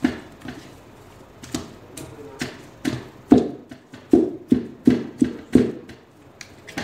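Wooden spoon knocking and scraping against the side of a stainless steel pot while stirring thick date paste with ghee: a run of dull, irregular knocks, about two or three a second, coming thickest and loudest in the middle.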